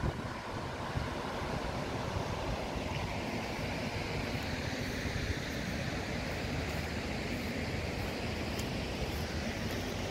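Steady rushing noise of wind buffeting the microphone outdoors.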